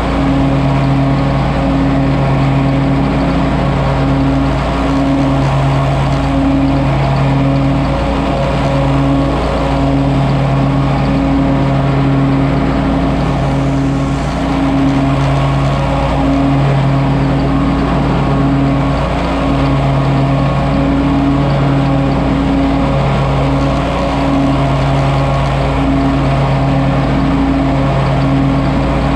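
John Deere 648R stand-on mower's engine and 48-inch cutting deck running steadily while mulching leaves with X-Blades. A constant drone that wavers in strength every second or so.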